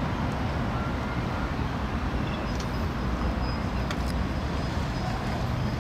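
A car engine idling steadily, a low continuous rumble, with a few faint clicks about midway.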